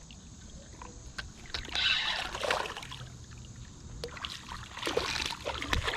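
Creek water splashing and sloshing as a hooked fish is played, in uneven swells with scattered small clicks.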